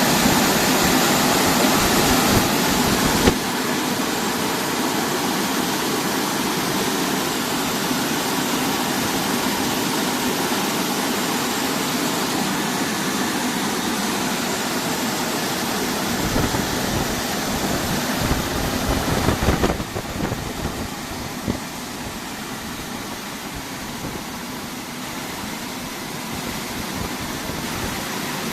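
Automatic rollover car wash machine running: a steady rush of water spray and motor noise. The sound shifts abruptly about three seconds in and grows quieter near twenty seconds in.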